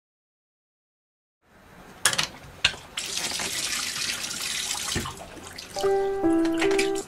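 Bathroom tap running into a sink, with two sharp knocks about two seconds in. Near the end, a few held musical notes step down in pitch over the running water.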